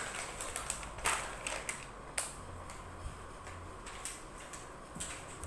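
Plastic toy guns and small plastic pieces clicking and clattering on a tiled floor as they are handled, in irregular taps with a few sharper knocks about a second in, about two seconds in and near the end.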